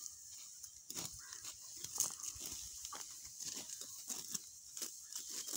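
Dry, ripe wheat stalks rustling and crunching in irregular snaps as they are cut by hand close to the ground.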